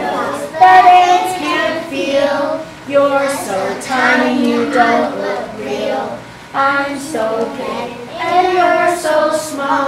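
A child singing a verse solo, phrase after phrase.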